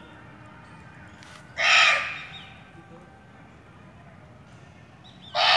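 Indian muntjac (barking deer) giving two short, harsh barks about four seconds apart, the second near the end.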